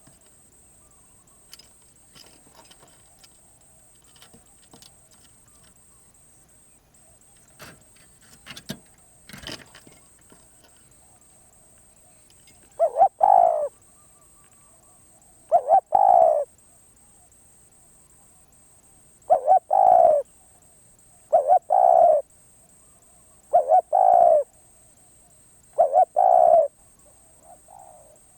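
Spotted dove cooing: six loud coos about a second long, repeating every two to three seconds through the second half. Before them there are only a few faint clicks and taps.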